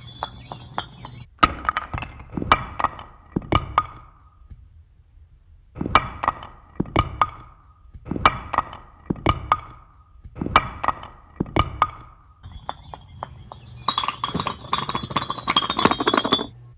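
Bricks or blocks knocked together in quick rhythmic groups of about four to six sharp clacks, each with a short ring, separated by pauses. High chime tones ring briefly at the start and again near the end.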